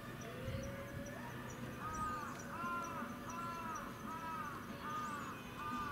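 A bird calling a regular series of short, clear, arched notes, about one every 0.7 seconds, starting about two seconds in. Faint high chirping and a low steady hum run beneath.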